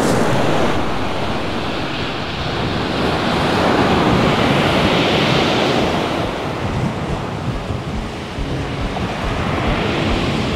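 Storm surf breaking on a shingle beach, with wind buffeting the microphone. The wash of the waves swells to its loudest about halfway through.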